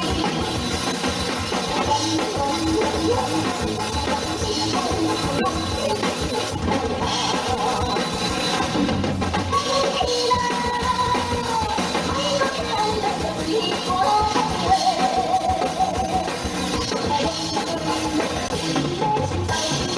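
Live pop-rock band playing a song: a steady drum-kit beat under guitar and bass, with singing over it.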